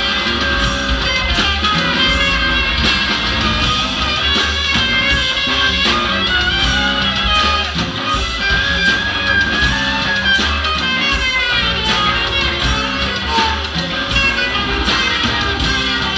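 A live band playing amplified music: guitar over drums and bass with a steady beat, continuing without a break.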